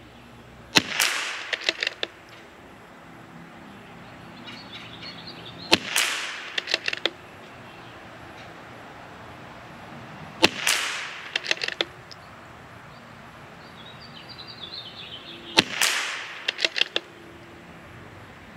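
Four shots from a CZ 457 MTR .22LR bolt-action rifle, about five seconds apart, each followed within a second by a quick run of clicks as the bolt is worked.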